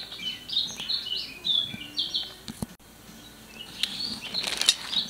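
Small birds chirping in quick, short high notes through the first half. Near the end comes a crinkling rustle as a plastic bag is handled.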